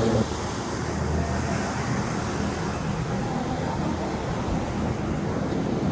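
SRT Light Red Line electric commuter train approaching, a steady rumbling hiss of wheels on rails. A held chord of tones cuts off abruptly just before it.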